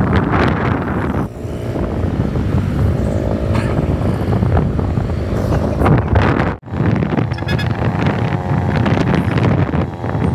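Wind buffeting the microphone over the engine and road noise of a moving vehicle in traffic, with a pitched engine hum that rises and falls at times. The sound drops out briefly about six and a half seconds in.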